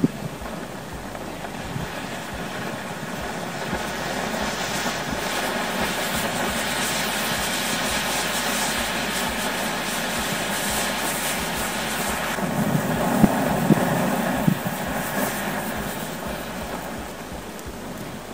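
A large mass of matches burning in one blaze: a rushing noise of flame that builds over several seconds, with crackling and a few sharp pops about two-thirds of the way through, then fades as the fire burns down.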